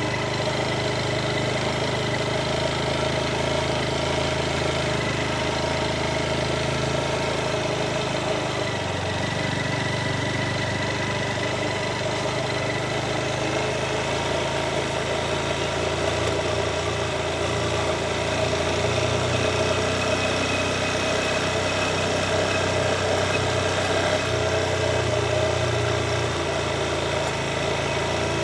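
Motorcycle engine running steadily while being ridden, its pitch shifting only a little.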